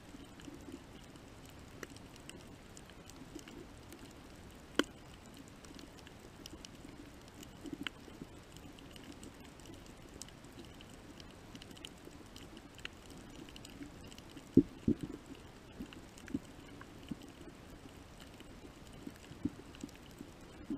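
Underwater ambience picked up by a submerged camera: a faint steady hum with scattered sharp clicks and pops, a loud one about five seconds in and a cluster of louder pops about two-thirds through.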